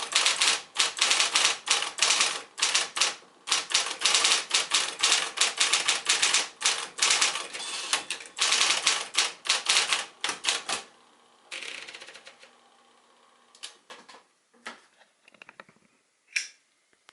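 Smith-Corona Electra 120 electric typewriter typing in quick, uneven keystrokes for about eleven seconds, then stopping. A short rasping sound and a few scattered clicks follow.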